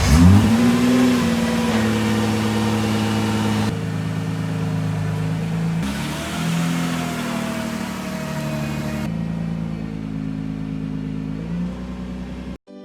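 2017 Nissan GT-R's twin-turbo 3.8-litre V6 just started: its revs flare up and settle into a steady idle.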